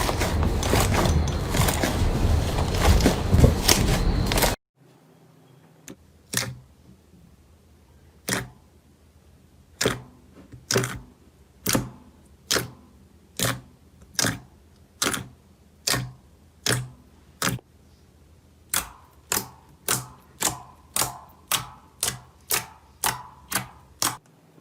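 Slime being handled for ASMR. First a dense, loud crackling that stops abruptly a few seconds in, then a run of sharp single clicks or pops, about one a second, quickening to about two a second near the end.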